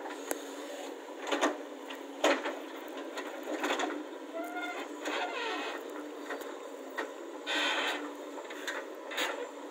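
JCB 3DX backhoe loader digging into a bank of red earth: its diesel engine runs steadily under sharp knocks and scrapes of the steel bucket in the soil, the loudest about one and a half and two and a half seconds in, and a longer scraping rush about seven and a half seconds in.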